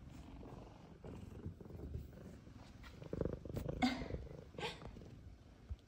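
F2 Savannah cat purring right at the microphone, a steady low rumble. Between about three and five seconds in, its fur brushes and knocks against the microphone.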